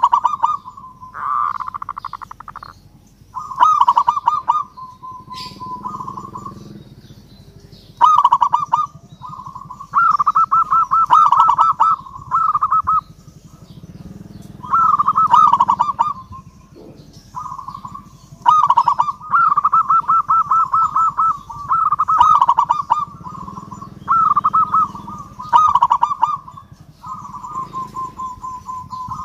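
Zebra dove (perkutut) singing: its rippling, staccato cooing phrases repeated over and over, a new phrase every second or two, some ending in a flat held note.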